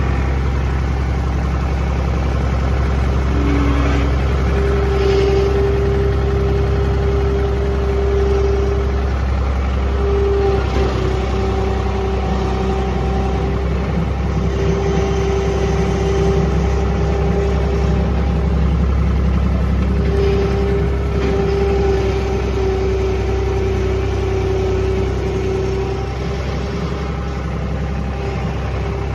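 John Deere 250 skid steer's three-cylinder turbo diesel running steadily, with a higher steady whine that comes and goes every few seconds.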